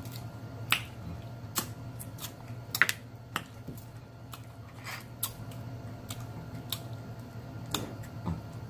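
Close-miked eating of snow crab legs: irregular sharp clicks and snaps, about one or two a second, from crab shell being picked apart and from the mouth, over a steady low hum.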